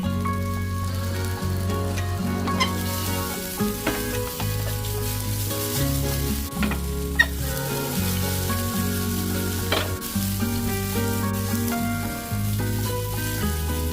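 Soya chunks sizzling as they fry in a pan, with a few sharp taps and scrapes as they are stirred. Background music with a steady bass line plays throughout.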